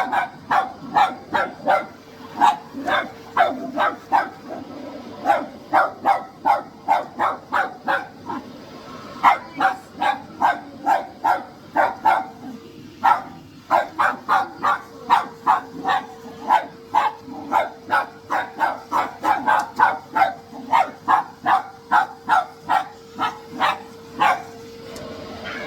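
Dog barking over and over, about two to three barks a second with a short break about twelve seconds in, at a running vacuum cleaner. A steady hum from the vacuum sounds underneath the barks.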